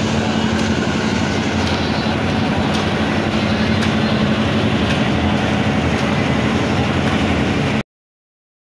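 Steady machine hum and rumble with a dense wash of background noise. It cuts off abruptly near the end.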